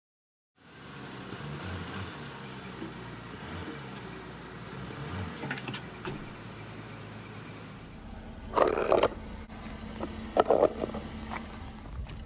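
Car engine running steadily at idle, with two louder short noises about eight and a half and ten and a half seconds in.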